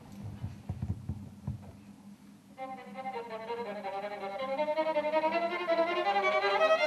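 A string quartet of two violins, viola and cello starts playing about two and a half seconds in: held notes that grow steadily louder. A few soft low knocks and shuffles come before it.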